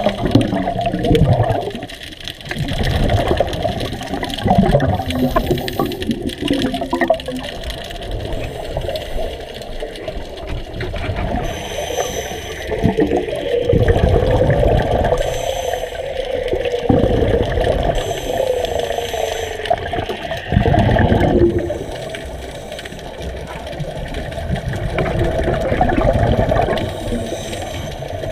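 Scuba divers' exhaled bubbles from their regulators, gurgling and rushing in surges every few seconds, heard underwater.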